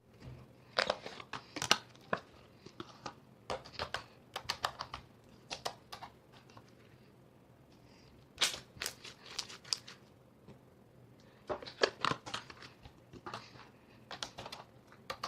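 Slime being squeezed and pressed by hand, giving clusters of sticky clicks, pops and crackles in irregular bursts with short quiet gaps between them.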